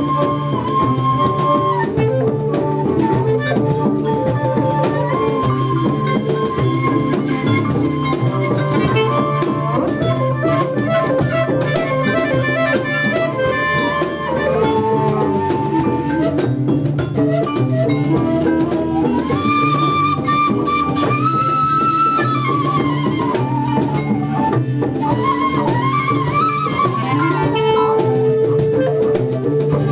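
Live jazz-fusion band improvising: melody instruments play long, held notes that bend and slide, over drum kit, cymbals and hand percussion.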